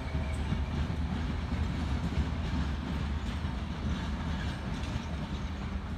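TEM14 shunting diesel locomotive pulling away along the track: a steady low diesel rumble that slowly grows fainter.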